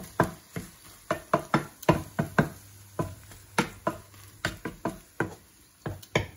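A wooden spatula knocking against a non-stick frying pan as it chops through and turns pieces of omelette: quick, irregular sharp knocks, some in pairs.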